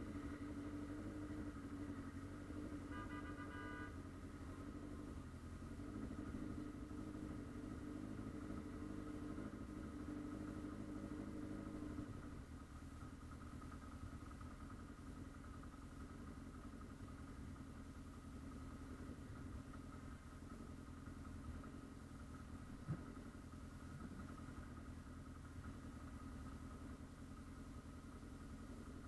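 Motorcycle engine idling steadily in stopped traffic, with the low hum of other idling vehicles around it; the engine note drops a little about twelve seconds in. A brief high tone sounds about three seconds in, and a single sharp click comes near the end.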